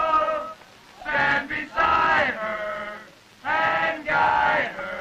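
A group of boys chanting a song together in unison, in short phrases of about a second with brief pauses between them.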